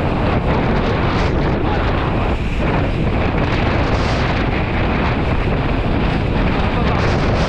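Strong wind buffeting a kitesurfer's helmet-mounted action-camera microphone in a loud, steady rumble, with the board rushing over choppy water underneath.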